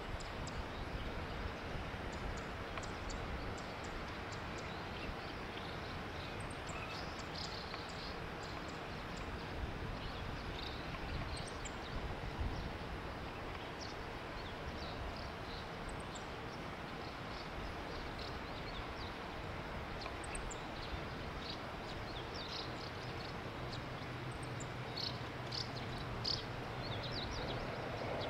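Rural outdoor ambience: a steady background hiss with many short, high bird chirps scattered throughout. About three-quarters of the way through, a low steady hum joins in from the distant electric freight train as it draws nearer.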